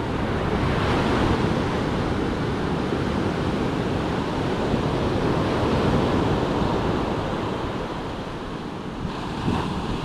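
Surf breaking and washing up a sandy beach: a steady rushing noise that swells and eases, with wind buffeting the microphone.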